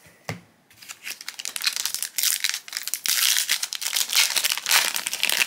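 Foil trading-card booster pack wrapper being torn open and crinkled by hand: a dense crackling that starts about a second in and grows louder toward the end. A soft thump comes just after the start.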